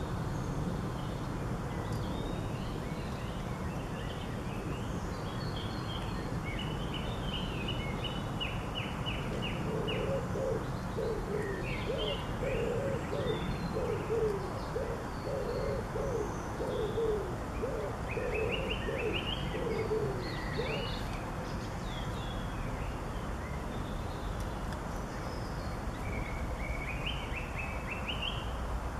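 Garden birdsong: small birds chirping in short high phrases, with a pigeon cooing a run of low repeated notes from about ten to twenty seconds in, over a steady low hum of background noise.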